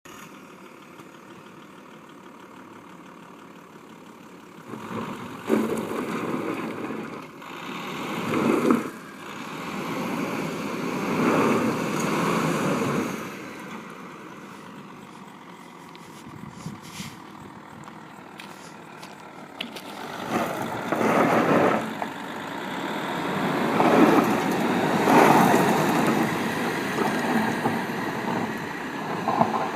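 Audi A6 2.5 TDI quattro's turbodiesel engine running quietly at first, then pulling hard in several long surges of a few seconds each under off-road load, easing back between them.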